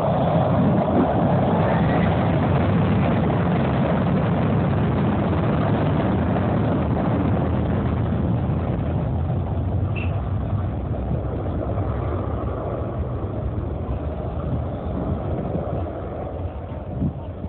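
Airbus A320 jet engines at takeoff thrust during the takeoff roll: a loud, steady low rumble that slowly fades as the aircraft moves away down the runway.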